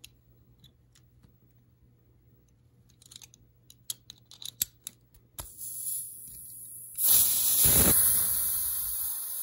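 Sharp metallic clicks as a CO2 cartridge is handled and seated in a CO2 airgun's cartridge housing, then a hiss of escaping CO2 that starts about five seconds in and turns loud a couple of seconds later: gas venting as the cartridge is pierced.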